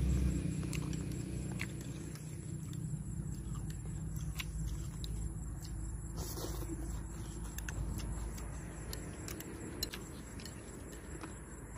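Noodles being eaten with chopsticks from ceramic bowls: scattered light clicks of chopsticks on the bowls and a slurp of noodles about six seconds in, over a low steady rumble.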